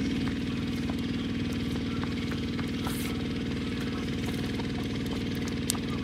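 A small engine idling steadily, with an even, fine pulse, and a few faint ticks over it.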